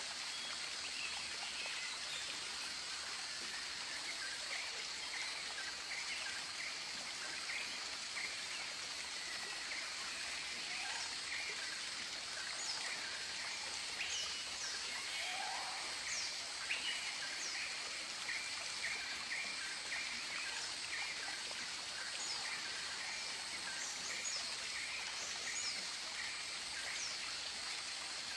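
Tropical birds calling over a steady rushing hiss: a long run of short quick chirps, scattered brief high whistles sliding down in pitch, and a few lower falling notes.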